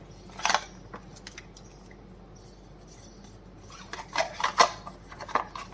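Handling noise from unboxing earbuds: scattered short clicks and scrapes as the earbuds and their packaging are handled, with a louder click about half a second in and a cluster of them near the end.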